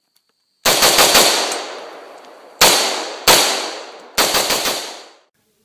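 AR-15-style rifle fired in rapid semi-automatic strings: a quick string of about four shots, two single shots, then another quick string of about four. Each string trails off in a long echo.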